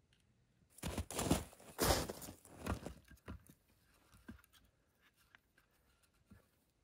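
Several crunching, tearing noises in the first few seconds, then scattered light clicks and taps.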